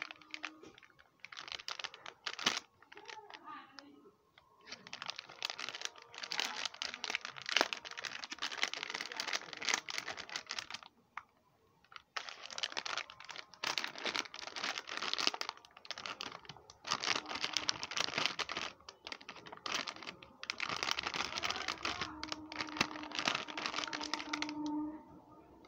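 Plastic and foil makeup-sponge packets crinkling and rustling as they are handled and opened, in several long bursts with short pauses between.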